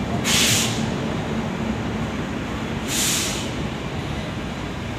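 LHB passenger coaches of a departing Rajdhani Express rolling past along the platform with a steady low rumble. Two short, sharp hisses come about two and a half seconds apart.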